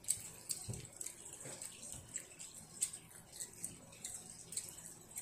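A young child chewing food with his mouth open: a run of small wet mouth clicks and smacks, irregular, a few a second.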